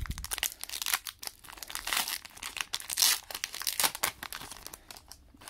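Foil wrapper of a Pokémon trading card booster pack crinkling and rustling in the hands as the pack is opened and the cards are pulled out. It comes in irregular bursts, loudest about three seconds in.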